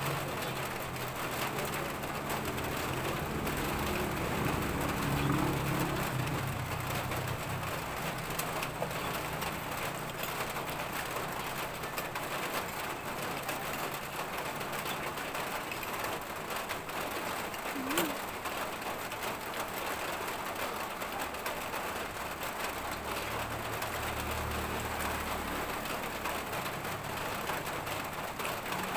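Steady hiss of rain falling around an open-sided hut, with a low hum at the start and again near the end, and a single sharp click about 18 seconds in.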